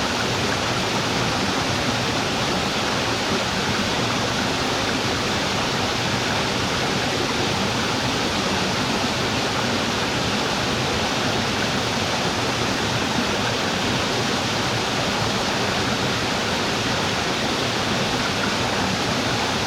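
Waterfall: water falling and splashing in a steady, even rush, with no change throughout.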